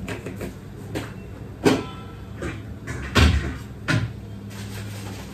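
Kitchen knocks and clatters as a salt jar is closed and put away and a low kitchen cupboard is opened and shut: about five sharp knocks, the loudest a heavy thud about three seconds in, over a low steady hum.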